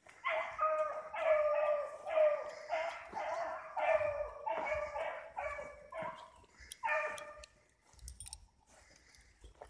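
Rabbit hounds baying out of sight in the brush: a steady string of drawn-out bawls, about two a second, the sound of the pack giving mouth on a rabbit's track. The baying stops about seven and a half seconds in.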